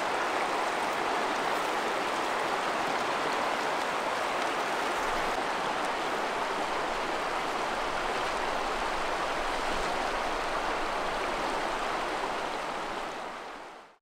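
Steady, even rush of flowing river water, fading away near the end.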